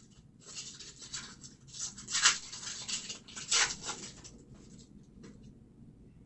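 Trading cards and pack wrappers being handled, a run of irregular rustling and rubbing noises that stops about five and a half seconds in.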